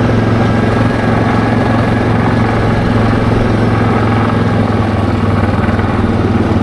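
ATV engine running steadily while riding along a road, a constant low hum with no change in speed.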